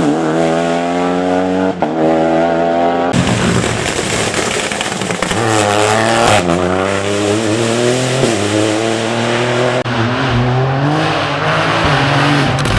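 Rally car engines at full throttle. First a steady high-revving note, then, after a sudden change about three seconds in, a car accelerating hard through the gears, its pitch climbing and dropping back at each upshift over a loud rushing noise.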